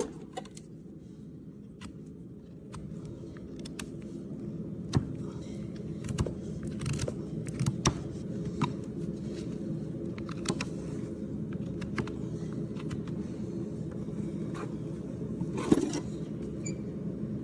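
Hoof nippers cutting through a hard, overgrown hoof wall: several short, sharp snaps at irregular intervals, over a steady low hum.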